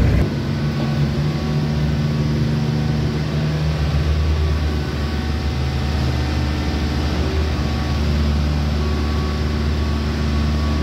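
Mini amphibious excavator's engine running steadily, a low hum whose pitch shifts slightly about halfway through and again near the end.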